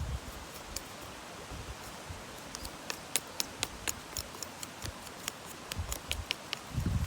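Steady rush of a mountain stream, with a run of sharp clicks from about three seconds in and a few low thumps near the end.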